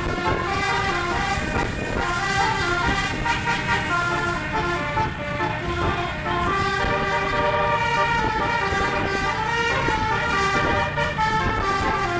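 Bus telolet horn, a multi-trumpet air horn, playing a continuous melody that steps from note to note, several notes sounding at once, with engine rumble beneath.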